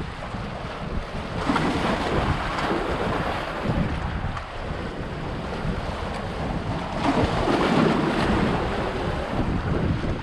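Sea surf washing over shoreline rocks, with wind buffeting the microphone as a steady low rumble. The wash swells louder twice, about a second and a half in and again about seven seconds in.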